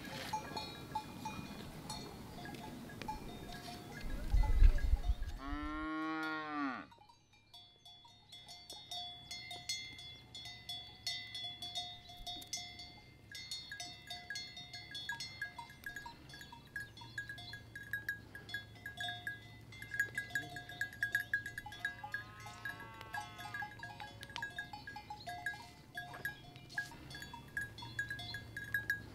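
Bells on grazing livestock clinking and ringing at a few fixed pitches throughout, and a farm animal calling twice, once about six seconds in and again past twenty seconds. Before the first call there is a loud low buffeting sound lasting about two seconds.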